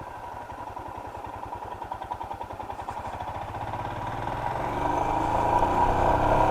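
Motorcycle engine running at low revs, then accelerating over the last couple of seconds, its pitch and loudness rising.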